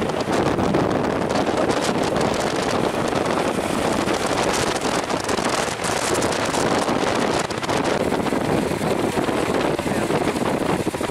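Wind rushing over the microphone of a moving motorcycle, with the engine's running noise blended underneath. The hiss eases a little about eight seconds in.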